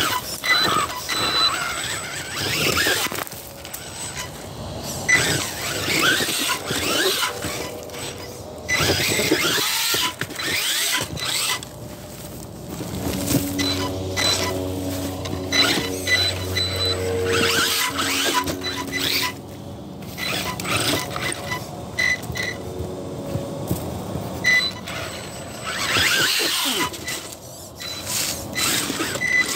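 Electric Axial Ryft RC rock bouncer driving over rock. Its motor whines, rising and falling with throttle in repeated bursts, while the tyres scrabble and the chassis knocks against the rocks. The motor holds a steadier whine for several seconds around the middle.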